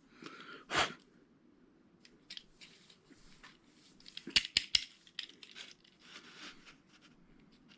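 Scattered clicks and light scraping from a die-cast toy car's metal body and plastic base being worked apart by hand after the rivets are drilled out. A sharp click comes just under a second in, and a quick cluster of sharp clicks about four and a half seconds in.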